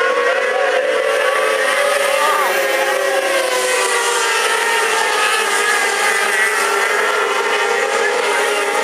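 Several winged Formula 500 speedway cars' engines running together as they circle the dirt track, overlapping engine notes that drift slowly up and down in pitch.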